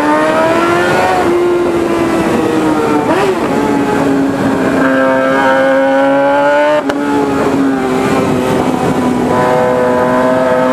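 Suzuki GSX-R 750 SRAD inline-four sportbike through a Firetong 4-into-1 sports exhaust, ridden under throttle: the engine note climbs and eases, with a short break and a dip in pitch about two-thirds through, like a gear change.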